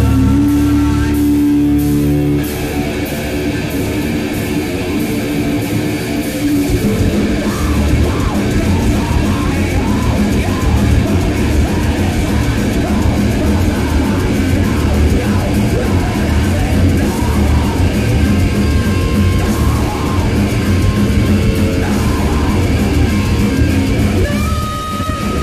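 Hard rock band playing live: distorted electric guitars over bass and a drum kit. It opens on a long held note before the full band comes in about two seconds in, and a high note is held steadily near the end.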